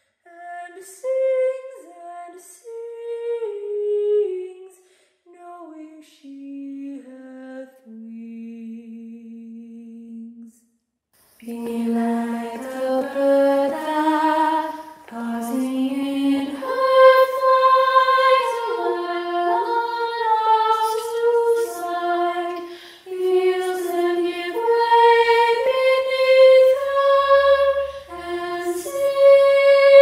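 A solo female voice sings a slow, unaccompanied line that falls step by step and ends on a long held low note. After a short silence about eleven seconds in, a choir of women's voices enters in harmony and sings on unaccompanied.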